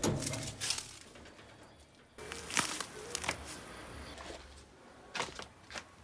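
A rusty sheet-metal door being pushed open, with a clanking scrape at the start, followed by several sharp knocks and clacks.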